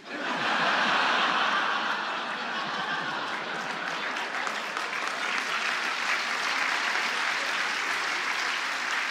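Audience applauding after a joke, starting suddenly, loudest in the first two seconds and then carrying on steadily.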